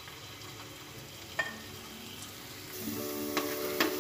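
Chopped ginger, garlic and green chili sizzling softly in hot vegetable oil in a nonstick kadhai, with a single click about a second and a half in. Near the end, two sharp taps from the spatula as stirring starts, while background music with steady tones comes in.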